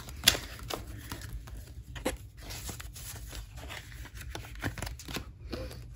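Paper bills being handled and counted out by hand: irregular soft rustles and flicks of the notes, with one sharper click shortly after the start.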